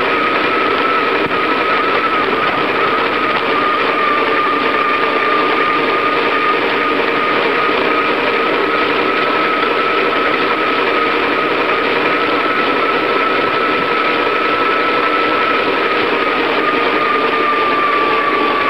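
Steady whirring of a bicycle being ridden, with a thin high whine held at one pitch that sinks slightly near the end.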